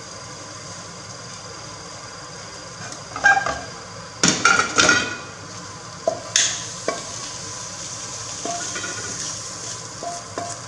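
A non-stick frying pan being handled off the heat. It clanks loudly a few times about four seconds in as it is moved off the gas burner. A wooden spatula then scrapes and taps stir-fried baby squid out of it onto a plate, over a faint sizzle from the still-hot pan.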